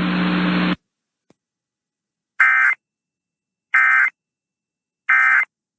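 Emergency Alert System End-of-Message signal: three short identical bursts of data tones, evenly spaced about a second and a third apart, marking the end of the alert. Before them, a steady hum with hiss from the broadcast audio cuts off suddenly under a second in.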